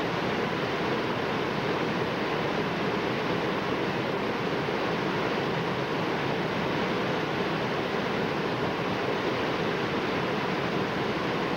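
Whitewater of a steep creek rushing steadily down a narrow rocky drop between boulders.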